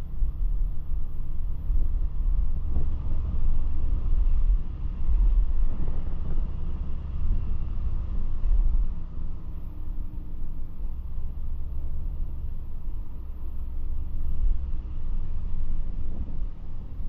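Steady low rumble of a vehicle on the move, engine and road noise together, swelling and easing a little as it drives.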